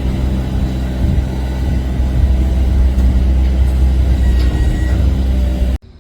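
An engine running steadily with a low, droning hum; it cuts off suddenly near the end.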